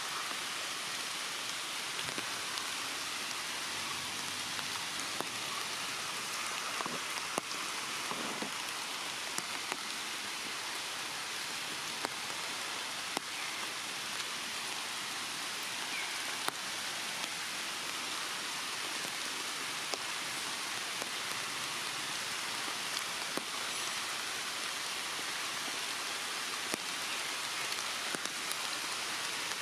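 Steady rain falling in forest trees, an even hiss dotted with scattered sharp ticks of single drops landing close by.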